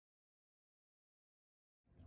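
Silence: the sound track is blank, with faint sound fading back in just before the end.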